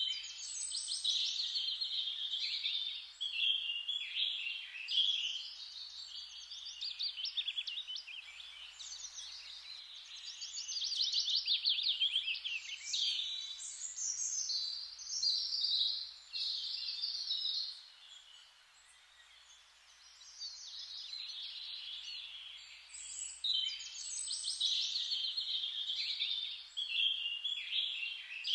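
Songbirds singing in a busy chorus of quick trills and chirps, with a short lull about two-thirds of the way through.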